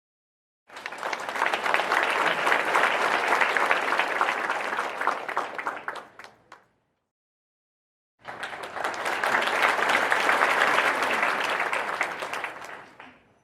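Two separate rounds of crowd applause, each about five to six seconds long. Each starts abruptly and dies away into a few scattered claps, with dead silence between them.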